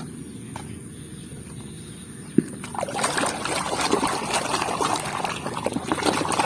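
Water splashing and trickling as a muddy plastic toy is washed, starting about three seconds in after a single sharp click.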